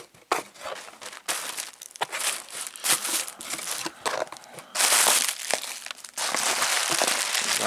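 Packing material crinkling and rustling as a shipping box is opened and unpacked by hand, with a louder burst of crackling about five seconds in.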